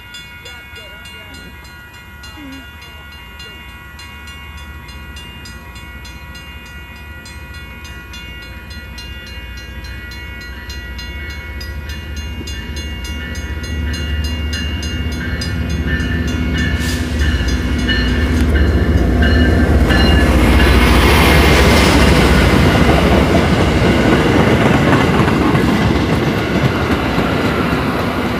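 A train approaching, getting steadily louder for about twenty seconds, then passing close with a loud rumble and the clatter of its wheels on the rails.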